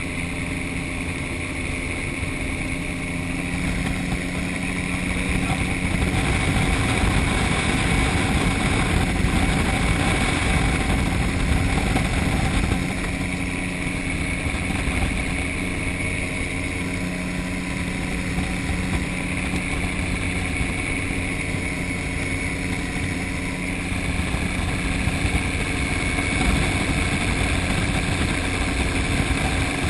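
Gyrocopter in flight: its engine running steadily under a heavy rush of wind, getting a little louder twice.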